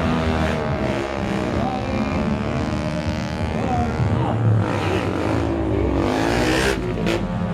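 A stunt motorcycle's engine revving up and down again and again, its pitch rising and falling. Two short sharp sounds come near the end.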